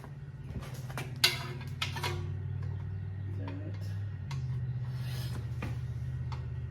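A few light clicks and knocks from handling a motorcycle exhaust clamp and its hardware, over a steady low hum that shifts in pitch about four seconds in.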